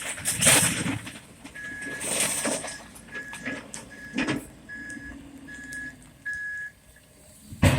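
A reversing vehicle's backup alarm beeping steadily, about seven high beeps a little under a second apart, over a faint engine hum. A short burst of rustling noise comes near the start.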